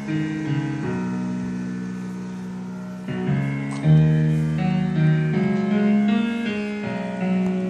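Recorded music played through a DX-999 amplifier and homemade tower speakers during a sound test: sustained chords that change every second or so.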